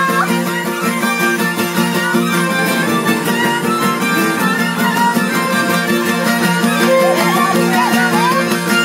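Ceteră (Romanian folk fiddle) playing an ornamented dance tune over steady strummed guitar chords.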